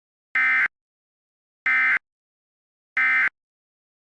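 Emergency Alert System end-of-message signal: three identical short bursts of buzzing digital data tones, each about a third of a second long and about 1.3 s apart, marking the end of the alert.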